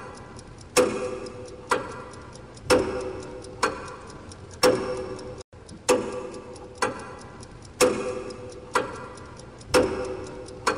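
Clock-style tick-tock sound effect, about one tick a second, each tick ringing briefly, with louder and softer ticks taking turns.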